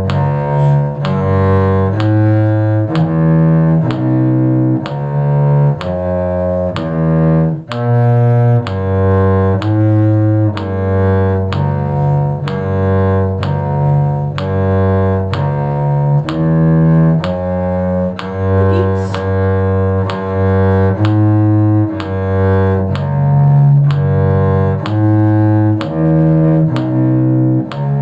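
Cello playing a bass line in G major: a steady run of low, separately bowed notes, about two a second.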